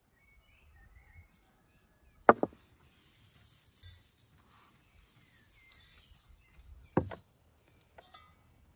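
Two sharp clinks of a spoon on small ceramic spice bowls, about five seconds apart, with a soft rustling hiss of spices being sprinkled onto minced meat in between and a lighter click near the end.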